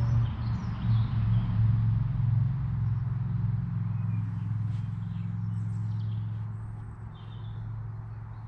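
A low, steady engine-like rumble that fades over the last few seconds, with faint bird chirps over it.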